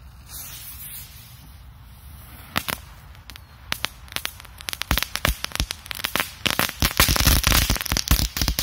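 Korsar 4 crackling firecracker going off on the ground: scattered sharp cracks that thicken into dense, loud crackling, then stop abruptly near the end.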